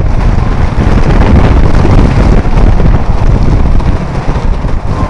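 Wooden roller coaster train running fast over its track, a loud continuous rumble with heavy wind buffeting the microphone.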